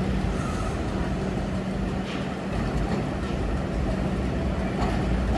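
BMT Standard subway train running, a steady rumble with an even low hum.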